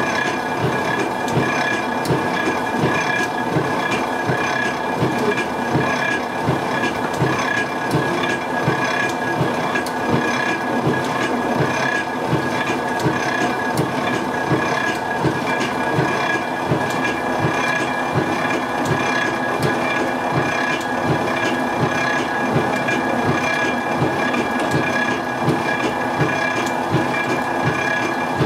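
Gear-driven machinery of a traditional walnut oil mill running steadily: a regular clatter, about two or three knocks a second, over a steady whine.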